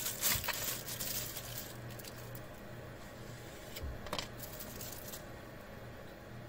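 Plastic packaging crinkling as a knife is pulled out of its bag by hand, busiest in the first two seconds, then a few light clicks and taps as the knife and sheath are handled.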